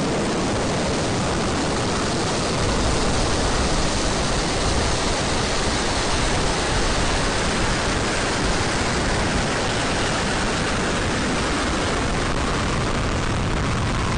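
Zhuque-2 rocket's four methane-oxygen first-stage engines at liftoff: a loud, steady, dense rush of exhaust noise that swells a little about two and a half seconds in.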